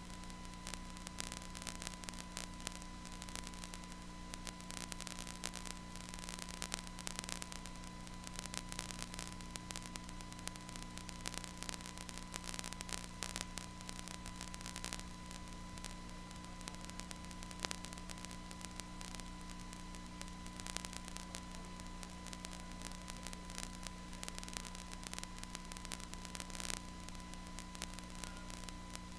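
Faint steady electrical hum with a constant high tone, under a continuous crackling static hiss from the audio line.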